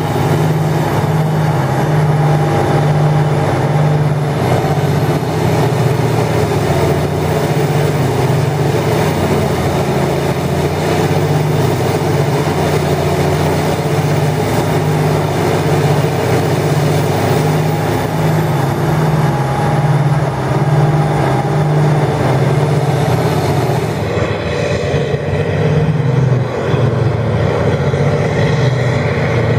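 Diamond Z 1260 tub grinder running under load while grinding cotton bales: a loud, steady drone from its diesel power unit with the rushing noise of the grinding mill. About 24 seconds in the sound turns duller as the higher hiss drops away.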